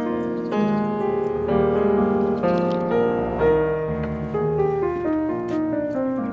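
Piano music, with notes and chords changing about once a second.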